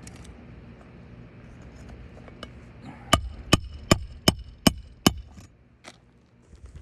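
Six quick hammer blows on a roofing snake, about two and a half a second, each with a short metallic ring, driving a roofing nail through an asphalt shingle into the roof decking. A few lighter taps come before and after them.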